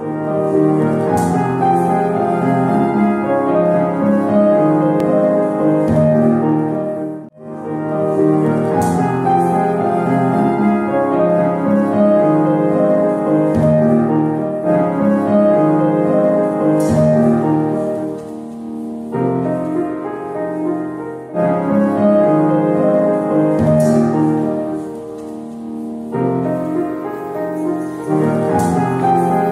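Piano music, with a brief break about seven seconds in.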